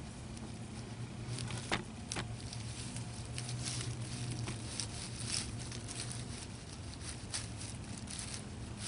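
Dry leaf litter crackling and rustling in irregular short bursts as a young pygmy rattlesnake shifts and crawls through it, with two sharp ticks about two seconds in.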